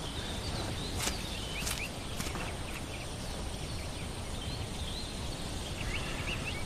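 Outdoor ambience: a steady background hiss with small birds chirping faintly, and three light clicks about half a second apart, starting about a second in.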